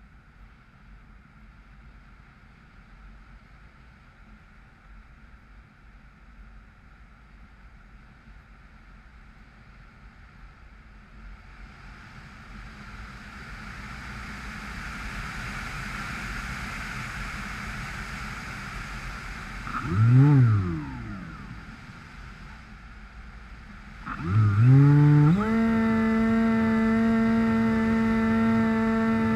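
Electric brushless motor and 6x5 propeller of a Bixler RC plane, heard from the onboard camera: a low hum with air rushing past that grows louder through the middle, one quick rev that rises and falls, then the motor throttles up in a couple of steps to a steady high whine near the end.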